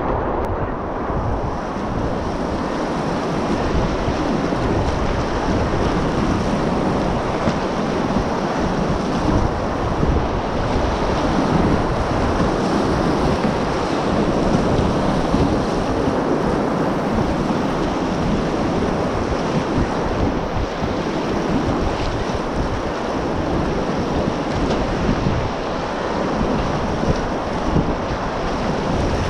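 Steady rush of whitewater rapids churning around a whitewater kayak, with the splash of paddle strokes in it. Wind buffets the camera microphone.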